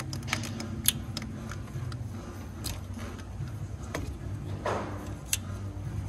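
Scattered sharp metallic clicks and clinks of a hand tool against engine parts, with a brief scraping rustle about five seconds in, over a steady low hum.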